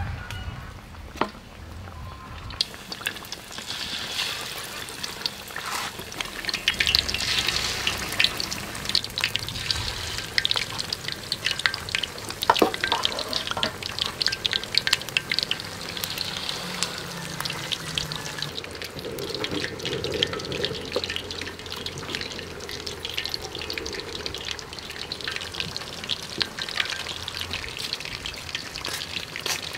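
Fish fillets frying in hot oil in a metal wok: a steady crackling sizzle full of fine pops, starting after a quieter couple of seconds.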